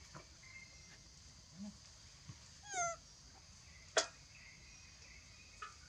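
A young monkey gives one short, high call that falls in pitch, about three seconds in. A single sharp click follows about a second later.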